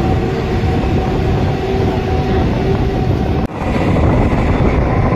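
Passenger train running through a station, its wheels and coaches rumbling steadily on the rails, heard from the open coach door. The sound drops out briefly about three and a half seconds in.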